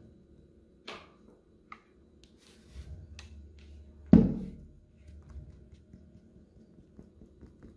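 Kitchen handling sounds while blended banana milk is strained through a plastic sieve into a glass measuring jug: a couple of light clicks, then one sharp thunk about four seconds in that dies away quickly.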